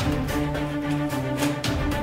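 Background action music with held notes, broken by a few sharp hits.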